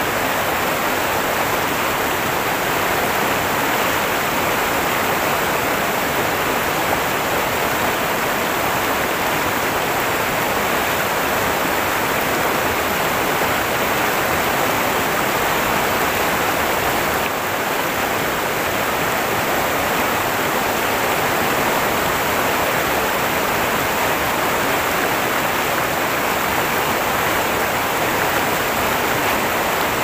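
Fast, shallow mountain-stream rapids rushing and foaming over rocks: a steady, unbroken rush of water.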